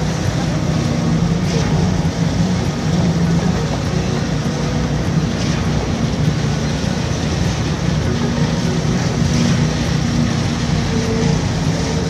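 Putzmeister truck-mounted concrete boom pump running steadily under load as it pumps concrete through the boom to the end hose, a continuous engine and machinery noise.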